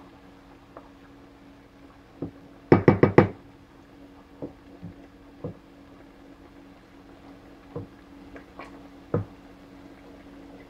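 Wooden spatula knocking against a frying pan while stirring fried rice. A quick run of four sharp knocks comes about three seconds in and is the loudest. Scattered lighter knocks follow, over a faint steady hum.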